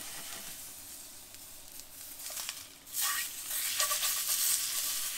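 Whole trout sizzling as it fries in a hot frying pan. The sizzle swells sharply about three seconds in and stays loud.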